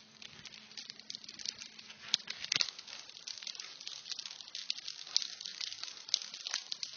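Forest fire burning: a dense, irregular crackling of burning vegetation with sharper snaps scattered through it, the loudest about two and a half seconds in.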